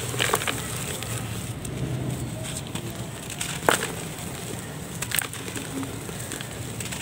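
Damp grey crumbly mix being squeezed and crumbled by hand, crumbs and powder pattering down into a plastic tub, with a few sharp crackles along the way.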